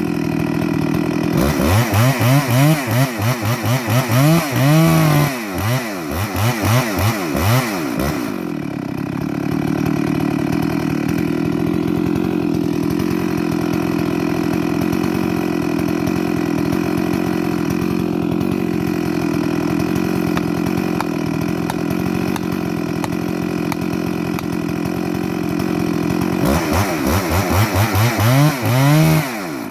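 Two-stroke chainsaw idling steadily, its throttle revved up and down in quick repeated bursts for several seconds near the start and again near the end.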